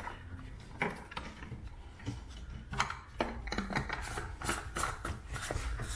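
Ratchet wrench clicking irregularly while a bolt on the bracket below a BMW E36 M3's coolant reservoir is loosened, with the clicks coming closer together in the second half.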